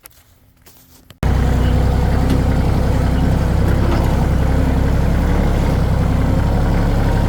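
Faint clicks in near quiet, then about a second in a tractor engine cuts in abruptly and runs loud and steady.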